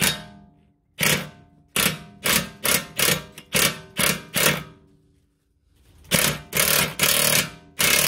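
Impact wrench hammering in short bursts, about nine quick pulls of the trigger, then a pause and longer runs near the end, as it spins a lug nut on a stud-installer tool to draw a new wheel stud into the hub until it sits flush.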